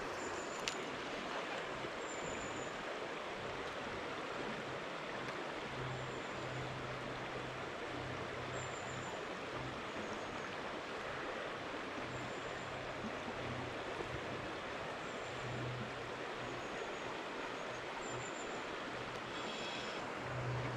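River water flowing, a steady rushing hiss, with faint short high chirps every second or two.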